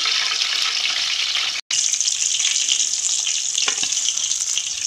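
Chicken koftas deep-frying in hot oil: a steady, dense sizzle that drops out for an instant about one and a half seconds in, then carries on.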